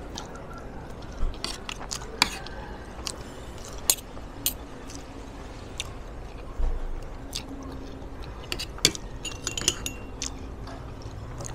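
Metal spoon and fork clinking and scraping against a ceramic plate in scattered sharp clicks, with close chewing between them.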